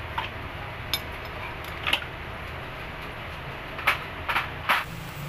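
Several short metal clinks and taps as a flat screwdriver pries at a steering rack's pinion housing and the pinion shaft is pulled out, over a steady low hum.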